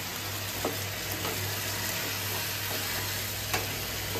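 Potato and pumpkin curry sizzling in a kadai while a spatula stirs it, with a few light knocks of the spatula against the pan over a low steady hum.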